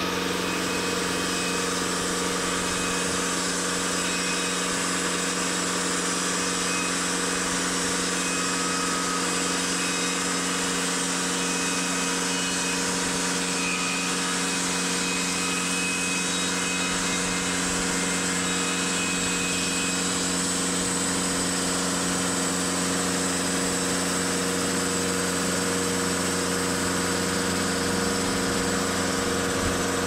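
TimberKing 2520 portable band sawmill running steadily, its engine holding one pitch while the band blade cuts through a log.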